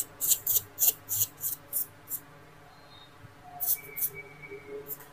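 Dust being cleaned out of a very dirty laptop's interior: a quick run of short, hissy strokes for about two seconds, then a few more near the end.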